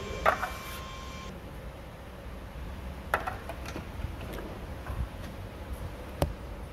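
Hand-work handling noise: a few sharp clicks and knocks, roughly three seconds apart, over a steady low background noise.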